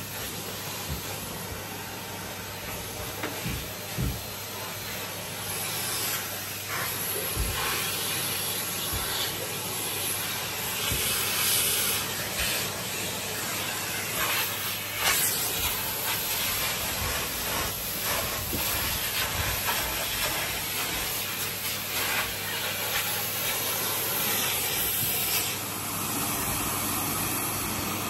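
Numatic Henry cylinder vacuum cleaner running steadily, its suction noise rising and falling as the dust brush attachment is worked over the carpet and furniture. A few short knocks of the tool come through, around 4, 7 and 15 seconds in.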